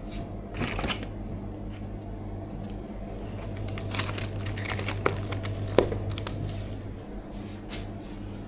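Plastic packaging being handled: rustling and crinkling with a few sharp clicks, over a steady low electrical hum.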